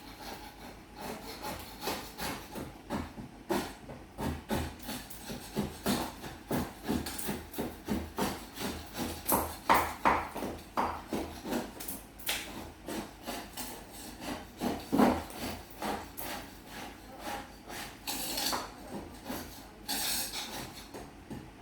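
Repeated back-and-forth scraping strokes of hand repair work, about two a second, with a few sharper knocks about ten and fifteen seconds in.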